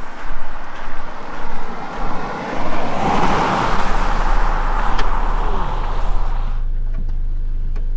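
A motor vehicle passing on a paved road, its tyre and engine noise swelling about three seconds in. Near the end it gives way suddenly to a steady low engine hum.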